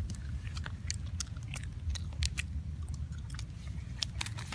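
Irregular crisp clicks and crunches, about a dozen, over a steady low rumble.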